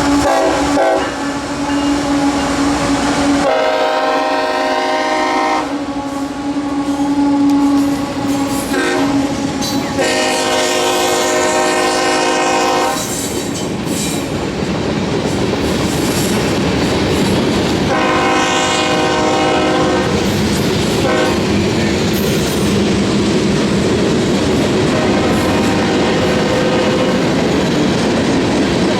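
CSX freight locomotive horn sounding three long blasts a few seconds apart, with a fainter fourth near the end, over the steady rumble and clickety-clack of the passing freight train.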